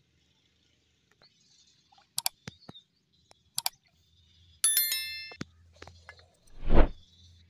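Subscribe-button overlay sound effect: a few mouse clicks, then a bell-like ding with several ringing tones about two thirds in. Near the end comes a short, loud rushing thump, with faint bird chirps behind.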